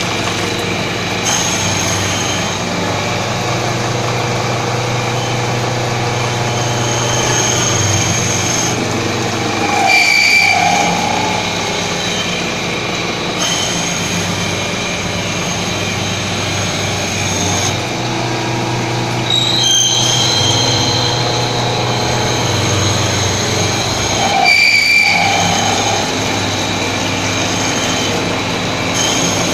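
CNC milling machine's large face mill cutting a metal workpiece under flood coolant: a steady grinding drone with high-pitched squealing tones over a low hum from the spindle. The cut grows louder and harsher twice, about a third of the way in and again near the end.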